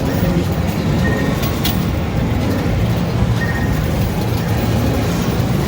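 Loud arcade din: a steady low rumble of game machines and crowd, with a few sharp clicks and two short electronic beeps.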